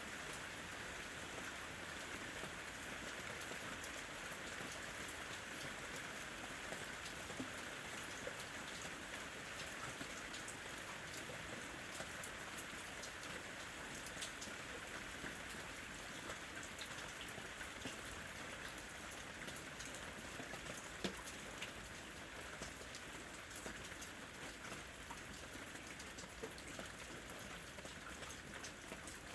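Steady rain falling, with many individual drops pattering and ticking on a hard surface.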